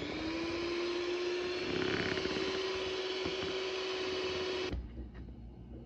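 Electric hand mixer running, its beaters whirring through thick dough; the motor whine comes up to speed at the start, holds steady, and stops suddenly about five seconds in, leaving a faint low hum.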